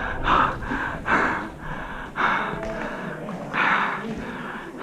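A person breathing hard: about five heavy, breathy gasps spaced roughly a second apart.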